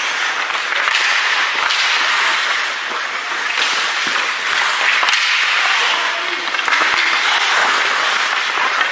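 Ice hockey rink sounds during play: a steady hiss of skates scraping the ice, with a few sharp clacks of sticks on the puck or ice, and some spectator voices.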